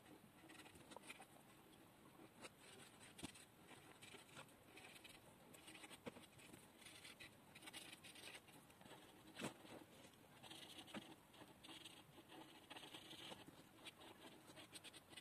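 Faint scratching of a black marker tip drawing short strokes on paper, with a few light clicks.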